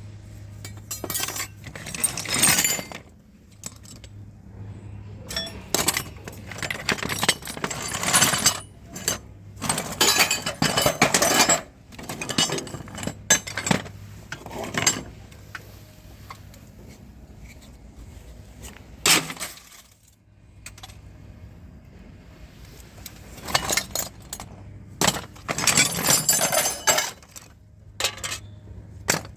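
Loose metal tools and scrap clinking and rattling in repeated bursts as they are picked through and moved about, over a steady low hum.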